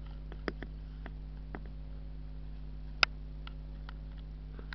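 Steady low electrical hum from a cheap handheld camera's recording, with a few sharp clicks of the camera being handled, the loudest about three seconds in.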